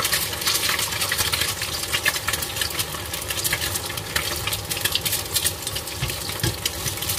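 Eggs frying in a wok of hot oil, sizzling with a dense, steady crackle of spattering pops. The oil is hot enough to puff and crisp the fried eggs.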